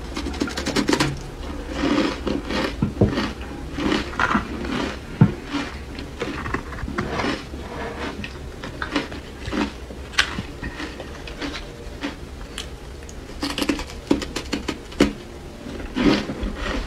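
Ice coated in matcha powder being bitten and chewed close to the mouth, giving irregular sharp crunches and crackles. Between bites, the ice scrapes softly as it is pressed into powder in a plastic container.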